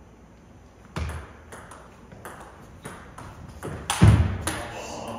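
Table tennis rally: a celluloid-type ball clicking off paddles and bouncing on the table, quick hits about every half second. About four seconds in there is a louder hit with a thud.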